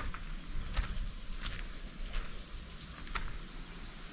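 Cricket chirping: a steady, high, evenly pulsed trill, with a few faint clicks scattered through it.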